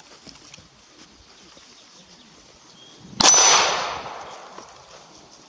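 A single gunshot about three seconds in: a sharp crack whose echo fades over about a second.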